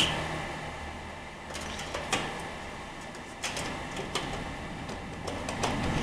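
Faint clicks and light scraping as a graphics card and its metal bracket knock against the motherboard slot and computer case while the card is lined up with the slot, about five small taps spread through the stretch.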